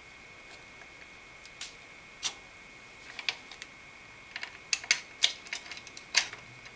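Scattered light metallic clicks and taps as screws are turned by hand to fasten a CPU cooler's mounting bracket to the AMD backplate, with a quick cluster of sharper clicks about five to six seconds in.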